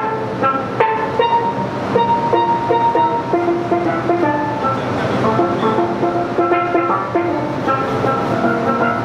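Steel pans played with sticks: a melody of quick struck notes, some held for a second or more as a sustained ringing tone.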